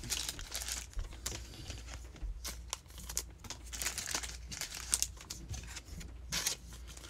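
Crinkling and rustling of plastic and foil packaging as trading cards are handled, in an irregular run of small crackles.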